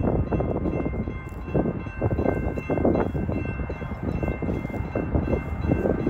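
Distant freight locomotive horn sounding as a steady chord, with gusts of wind buffeting the microphone.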